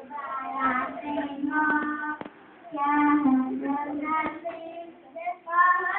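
A young girl singing into a corded microphone: held notes in short phrases with brief breaks, with a few sharp clicks.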